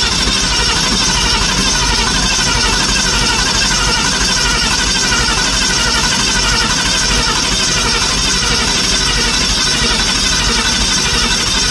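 Steady, loud electric whir of the car's fuel system being primed, running continuously with a slight waver and no break.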